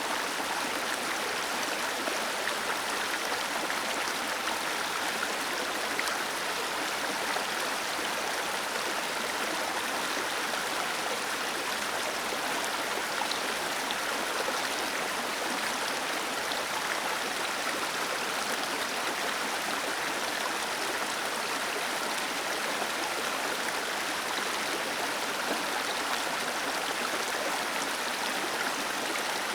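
Small waterfall pouring over rocks into a stream: a steady, even rush of falling and splashing water.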